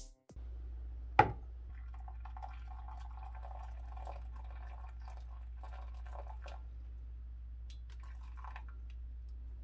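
Just-boiled water poured from a glass electric kettle into a glass measuring cup: a trickling, filling pour, after one sharp tap about a second in.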